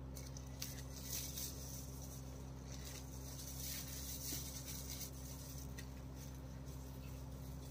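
Steady low electrical hum in a quiet room, with faint light patter and rustle in the first few seconds as cumin seeds are sprinkled into a pot of rice and water.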